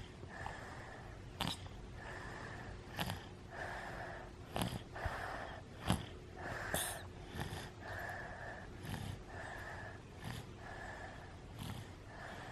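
Light snoring while falling asleep with an illness: soft wheezy breaths, about one every second and a half, each with a short click.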